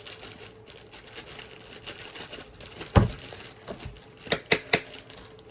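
Kitchen handling sounds while brown sugar is added to a dish of sweet potatoes: rustling and crinkling, one sharp knock about three seconds in, then three quick taps near the end.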